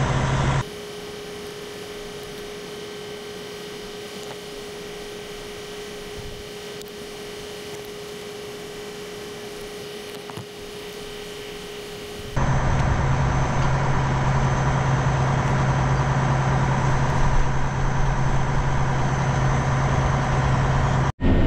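Farm tractor engine running with a steady low drone. It drops away suddenly about half a second in to a quieter, steady hum with one held tone, then comes back loud about twelve seconds in.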